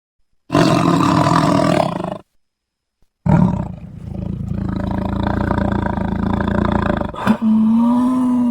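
Creature sound effect made of big-cat roars: one roar of about a second and a half, then, after a short silence, a longer roar of nearly four seconds. Near the end a sharp click is followed by a steady, held pitched call.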